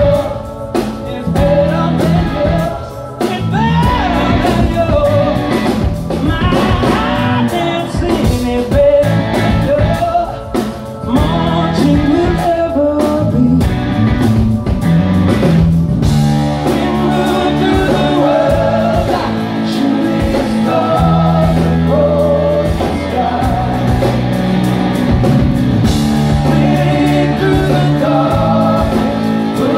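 Rock band playing live through a stage PA: electric guitar, bass and drums, with singing over the top.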